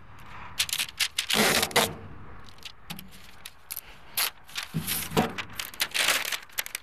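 Brown masking paper rustling and crinkling as it is handled and lifted, in short irregular rustles, the loudest about a second and a half in and again near the end.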